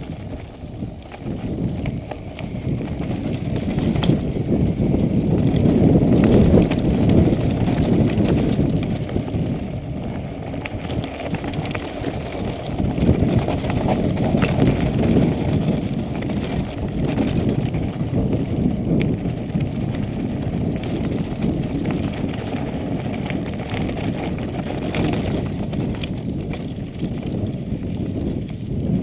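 Mountain bike riding over a rough dirt and sand trail: a steady low rumble of the tyres on the ground, broken by many small rattles and knocks from the bike over the bumps. It grows louder a few seconds in.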